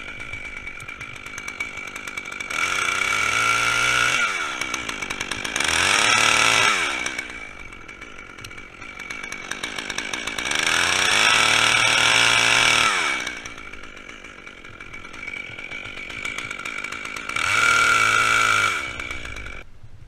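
Stihl top-handle two-stroke chainsaw idling, then revved up four times, the pitch climbing to full throttle and sliding back down to idle after each.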